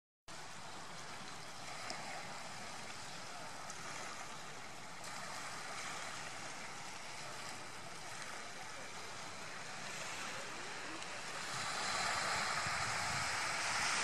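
Small waves washing onto a sandy shore, a steady hiss of surf that grows louder near the end.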